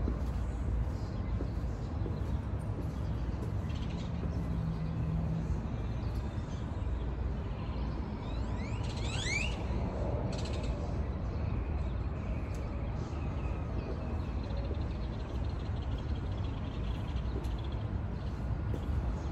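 Steady low outdoor rumble, with a bird's quick run of rising chirps about nine seconds in.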